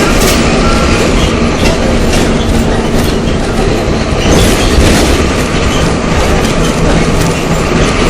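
Volksbus 17.210 EOD bus's MWM 6.12 TCAE six-cylinder turbo diesel running under way, loud and steady, with the body and road rattling. A steady low hum drops out about halfway through.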